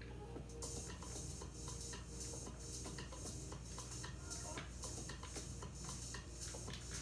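Light, irregular clicking and scraping: a screwdriver and metal and plastic computer parts being handled while screws are driven into a PC case. A steady low hum runs underneath.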